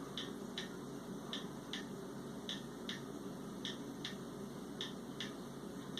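Mechanical 31-day wall clock ticking steadily, a little under three ticks a second.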